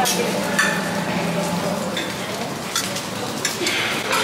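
Serving utensils and plates clinking now and then at a breakfast buffet, over a steady background hiss of the busy dining room.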